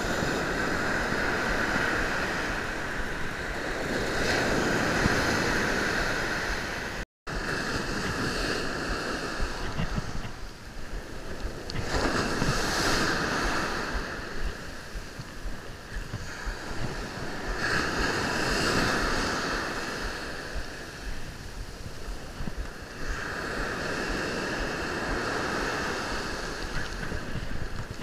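Ocean surf breaking and washing up a sandy beach, swelling and fading in slow surges every several seconds, with wind buffeting the microphone. The sound cuts out for an instant about a quarter of the way in.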